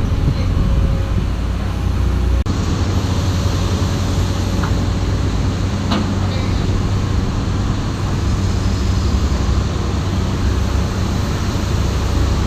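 Heavy diesel engine running steadily, a loud low drone, with a brief drop-out about two and a half seconds in.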